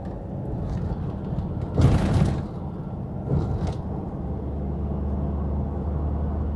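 Car interior while driving: a steady low engine and road drone. About two seconds in comes a brief louder noise, a smaller one follows a second and a half later, and from about four seconds a deeper steady engine hum grows stronger.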